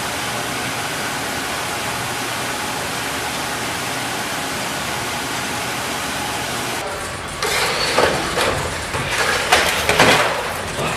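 Factory machinery running with a steady, even noise. About seven seconds in, irregular clanks and knocks start over it.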